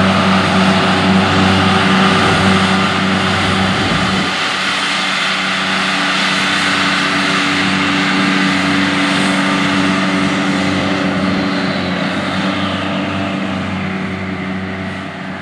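John Deere 8245R tractor's six-cylinder diesel engine running steadily under load as it pulls a John Deere 946 MoCo disc mower-conditioner through standing hay. It is a steady drone over a hissing whir, fading over the last few seconds as the tractor moves away.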